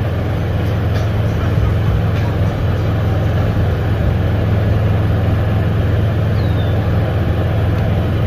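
Golf cart driving along steadily: a constant low hum from the cart with an even rushing noise over it.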